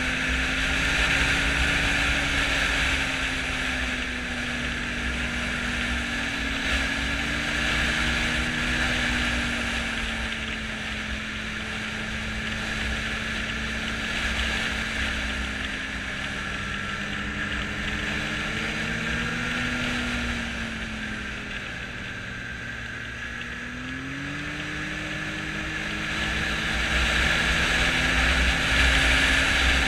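Snowmobile engine running under way, its pitch drifting up and down with the throttle. About twenty seconds in it drops lower and quieter, then climbs and grows louder again near the end.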